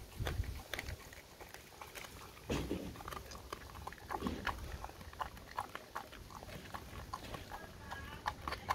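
A dog chewing a raw gilt-head bream, its teeth crunching through the fish's head and bones in irregular wet clicks and crackles. There are two heavier bursts about two and a half and four seconds in.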